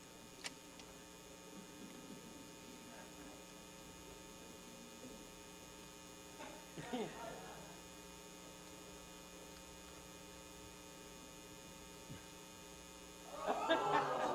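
Steady electrical mains hum over a quiet stage, with a brief faint sound about seven seconds in. Near the end a burst of voices and laughter starts.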